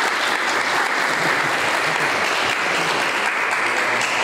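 A crowd applauding with steady, sustained clapping.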